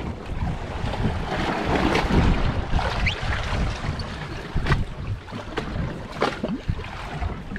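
Wind buffeting the microphone over the sound of sea water sloshing and slapping against a boat's hull, with a few short knocks and splashes.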